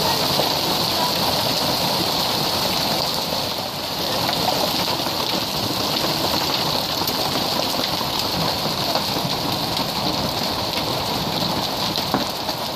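Hail falling steadily on a brick-paver patio and lawn: a dense hiss of countless small impacts, with a few sharper ticks standing out.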